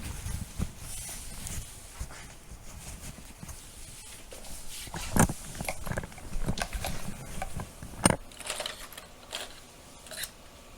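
Clothing rustling under hands during a police pat-down search, with scattered light clicks and two sharper knocks about five and eight seconds in.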